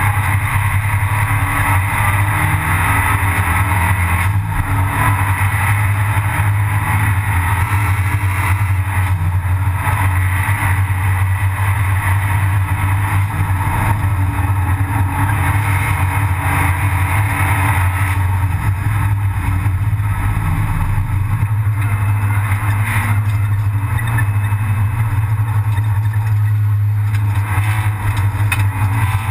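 Abarth 500 Assetto Corse race car's turbocharged 1.4-litre four-cylinder engine running hard at racing speed, heard from inside the stripped, roll-caged cabin together with road and wind noise. Loud and steady throughout.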